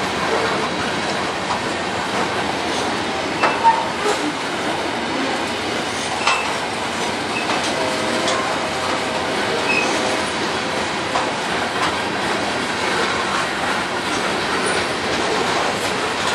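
Freight train's covered hopper and tank cars rolling past: a steady rumble and rattle of steel wheels on rail, with a few sharp clanks and a faint wheel squeal.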